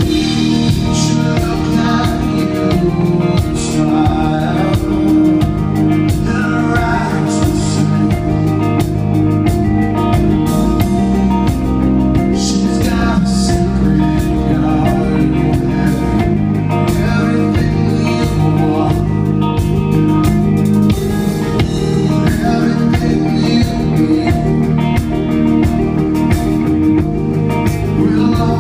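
Live rock band performance: electric guitar and a full band, with a man singing lead vocals.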